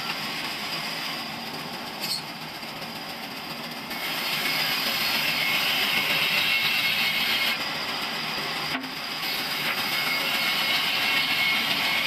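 Large band saw running and ripping wooden planks into slats. The cutting sound grows louder and brighter about four seconds in as a plank feeds through the blade, eases off briefly, then a second cut comes a few seconds later.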